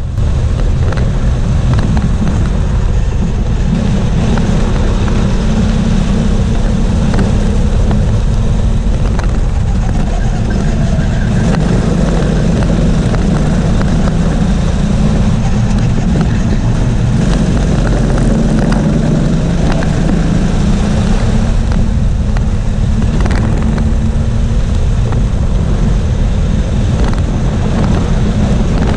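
Go-kart engine running hard on a flying lap, heard from on board the kart. Its revs rise and fall as it brakes for the corners and accelerates out of them.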